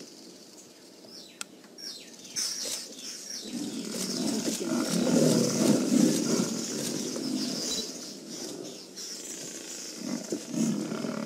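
A Cape buffalo attacking a downed lion: scuffling in the dust and rough animal growls that swell a few seconds in, are loudest around the middle, and then ease off.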